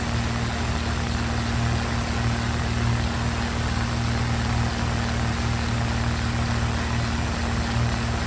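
2011 Ducane heat pump running steadily in heat mode, a constant hum over low rumble and airflow hiss.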